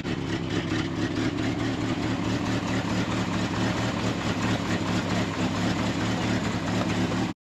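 The 1974 Ford F600 dump truck's engine idling steadily at low revs. The sound drops out abruptly for an instant near the end.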